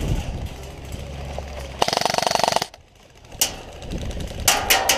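Airsoft electric gun firing a rapid full-auto burst of just under a second, about two seconds in, then a shorter burst near the end.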